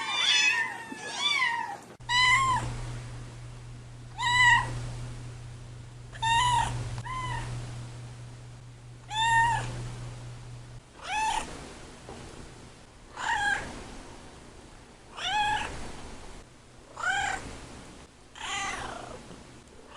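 Domestic cats meowing in a series of separate meows, about one every two seconds, each rising then falling in pitch. The background changes about two seconds in and again about halfway through, as if from different recordings or cats.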